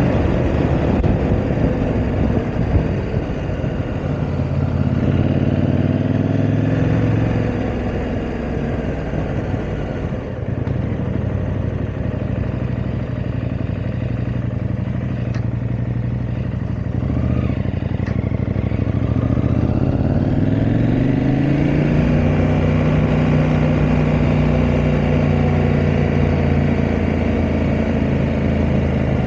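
KTM 890 Adventure R's parallel-twin engine under way: the revs climb about four seconds in, fall back and run lower and quieter for a while, then rise smoothly about twenty seconds in and hold steady.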